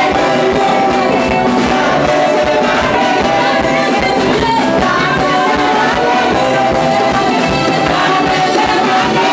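Live gospel praise music: a group of singers over a band with electric guitar and drums.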